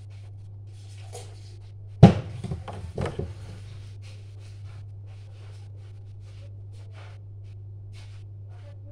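A sudden loud knock about two seconds in, followed by about a second of rattling and clattering. A steady low hum and faint scratchy ticks run underneath.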